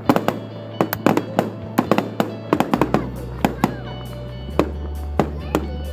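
Fireworks display: a quick, irregular run of sharp bangs and crackles, several a second, over music with deep sustained notes.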